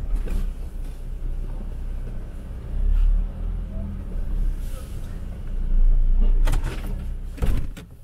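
Off-road vehicle engine running under load with a low rumble that swells twice, with a few sharp knocks or clunks near the end.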